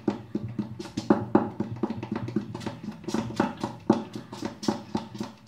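Idli batter of ground rice and urad dal being beaten by hand in a metal bowl: quick, regular wet slaps, about five a second. The beating works air into the batter before it is set to ferment.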